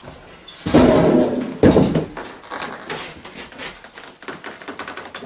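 Two heavy thumps as a tracked motorized tow unit (snow dog) is set down level on a wooden floor, followed by light clicks and rattles from its metal parts.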